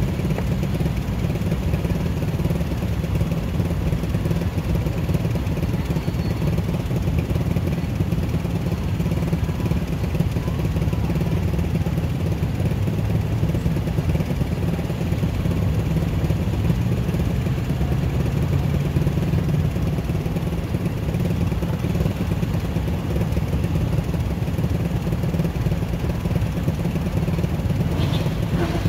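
Honda Click 125i scooter's single-cylinder engine running with a steady low rumble that does not let up.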